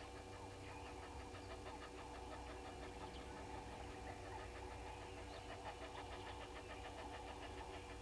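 Faint bush ambience: a dense chorus of many small chirping bird calls over a steady low hum.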